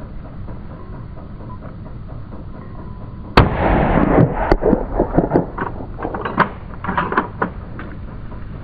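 Hunting gunfire: one loud shot about three and a half seconds in, then a rapid string of further shots, some loud and some quieter, over the next four seconds.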